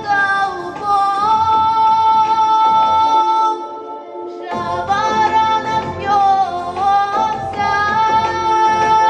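Women's folk vocal ensemble singing a Russian song in long, drawn-out held notes. The phrase breaks briefly about four seconds in before the singing resumes.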